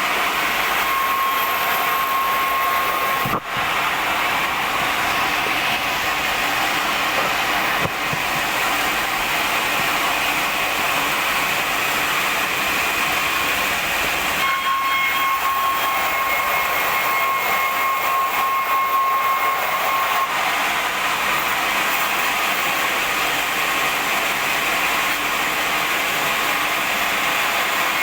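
Sawmill band saw running and cutting through wide wooden boards: a steady loud noise with a high whine that comes and goes, and a brief dip in level about three seconds in.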